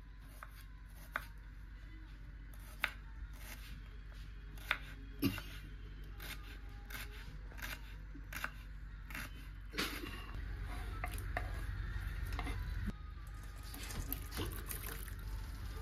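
A kitchen knife slicing red onions on a wooden cutting board: irregular sharp taps of the blade striking the board. Near the end, sweet corn kernels are tipped from a metal colander into a pan of water, over a steady low hum.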